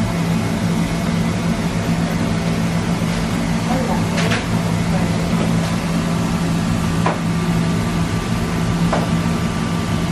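Steady mechanical hum of commercial kitchen equipment, a low droning tone over even noise. A few faint clicks and knocks come partway through.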